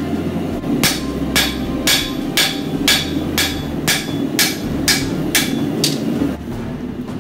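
Hand hammer striking a hot 80CrV2 steel bush-sword blade on an anvil, with about a dozen evenly spaced ringing blows, two a second, stopping about six seconds in. The blows are straightening the blade, dropping back down a curve that drawing it out had kicked upward. A steady low hum sits underneath and stops shortly after the blows.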